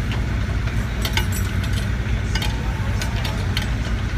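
Excavator's engine running steadily with a low drone, with scattered light clicks and clinks over it.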